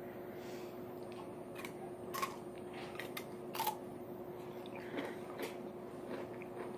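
Irregular light clicks and taps, about eight of them, the loudest about three and a half seconds in, over a steady low hum.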